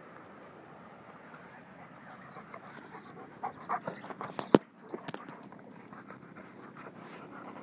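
Irish Setter panting close by after a run, a run of short breaths, with a sharp knock about halfway through.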